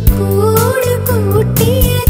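Malayalam film-style song: a woman sings a wavering melody over backing music with bass and a steady beat.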